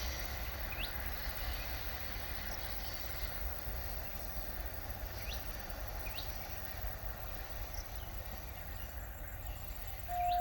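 Outdoor trackside ambience after a train has gone by: a steady low rumble, with the train's hum fading away over the first couple of seconds. Short rising bird chirps come about every one to two seconds. A steady single tone starts abruptly just before the end.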